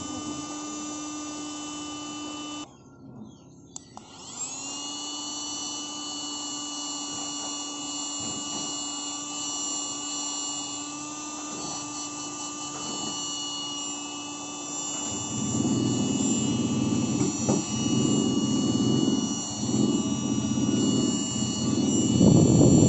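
Baseus C2 mini handheld vacuum cleaner's small electric motor running with a steady high whine. It is switched off about three seconds in and back on a second later, spinning up. Over the last several seconds a louder, uneven rushing noise joins the whine.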